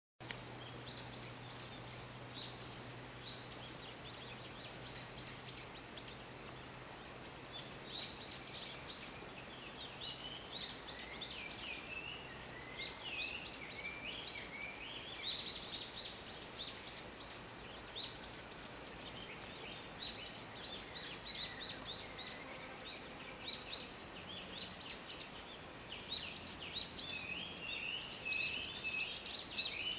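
A chorus of many wild birds calling at once: short chirps and whistles overlapping, sparse at first and thickening from about eight seconds in, over a steady high hiss.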